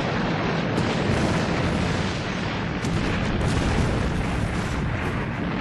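Loud, steady rumbling roar of a blast sound effect in the soundtrack.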